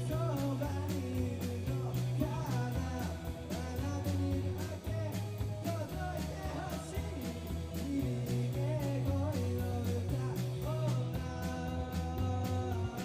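Live rock band playing a song: an electric bass stepping through notes under a steady drum beat, with a wavering melody line carried over the top.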